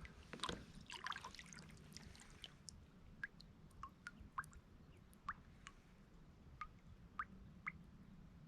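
Water dripping into the lake: a brief patter of drops in the first second or so, then single drops falling one at a time, irregularly, about one every half second.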